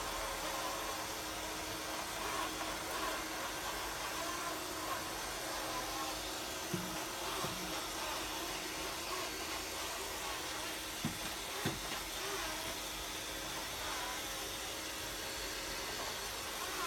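eufy RoboVac 20 robot vacuum running with a steady whir and hum. Two short knocks come about seven seconds in and two more about four seconds later.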